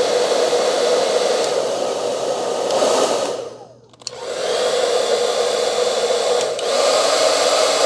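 Trezoro 2200-watt ionic hair dryer, sold as a quiet dryer, running: a steady rush of air with a motor hum. About three seconds in it winds down and briefly cuts out, then starts up again and runs on.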